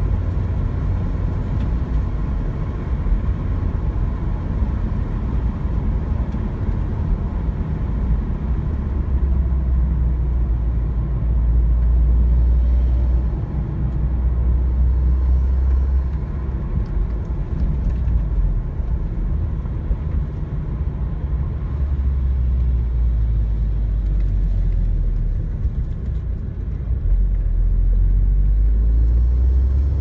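A 2003 Audi TT heard from inside its cabin, driving slowly at low revs: a steady low rumble of engine and road noise that swells and dips a few times.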